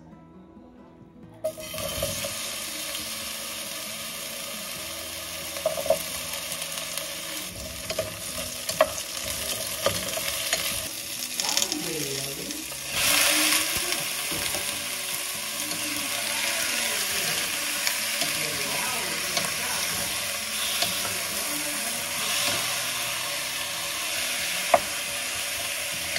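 Food frying in hot oil in a pan and being stirred, a steady sizzle with sharp clicks of a utensil against the pan. The sizzle starts about a second and a half in and swells for about a second just before the halfway point.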